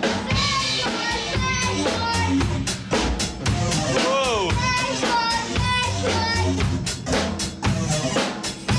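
A small band jamming funk: a drum kit beat with bass and a melodic line over it.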